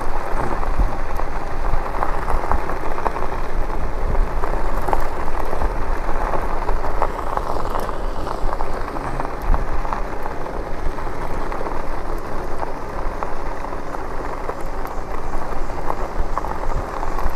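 E-bike tyres rolling over a gravel road, a steady crackling rush mixed with wind rumbling on the moving microphone.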